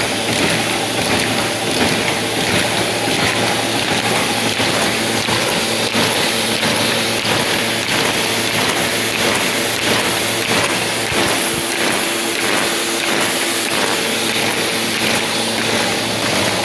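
Shoei 66 Combi 16 paper folding machine, with two buckle plates and two knife folders, running in production. It makes a loud, steady mechanical clatter of rollers, buckles and knives folding sheets, with a fast, even beat.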